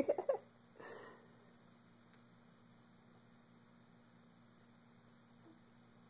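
Steady low electrical hum, room tone with nothing else, after the last of an adult's playful drawn-out "whoa" dies away in the first half-second; a brief soft breathy sound comes about a second in.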